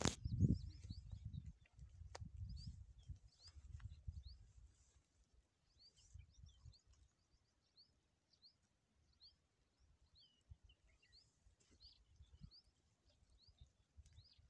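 Small birds chirping: short, high chirps repeat about twice a second. Low wind rumble on the microphone fades out after the first five seconds.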